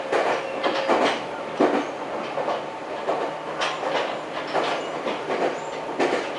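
Meitetsu Gamagori Line electric train running at speed, heard from inside the passenger car: a steady running noise with repeated clacks as the wheels cross rail joints, coming irregularly, roughly one to three a second.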